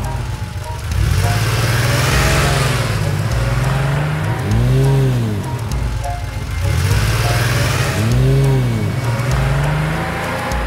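Cartoon car sound effects: a steady engine drone with revs that rise and fall in pitch a few times. Two long stretches of rushing noise are heard, with music underneath.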